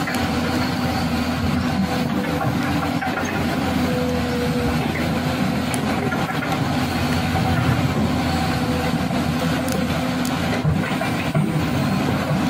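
Toy remote-control excavator running: its electric motors and gearboxes whir steadily as the boom and bucket move, with the pitch shifting as different motions start and stop.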